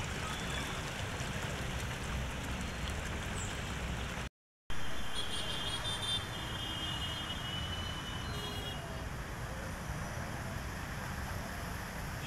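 Steady noise of road traffic with vehicles pushing through floodwater on a waterlogged road. It drops out to silence for a moment about four seconds in, and a few faint high-pitched tones sound just after.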